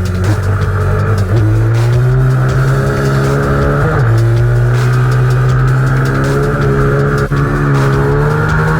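Minibike engine accelerating hard on track, its pitch climbing steadily and then dropping back sharply three times: about a second in, at about four seconds, and at the end, as the rider shifts or lifts off.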